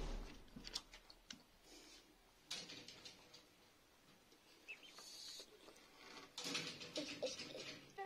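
Young chickens drinking at a plastic bottle waterer: their beaks tap the water dish in scattered light clicks, with a few short bursts of rustling.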